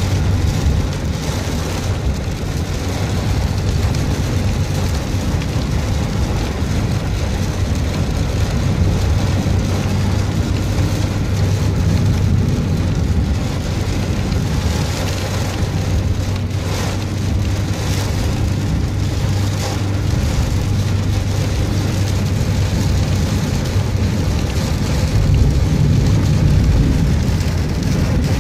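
Heavy rain pelting a moving car, heard from inside the cabin, over the steady low hum of the engine and wet road noise.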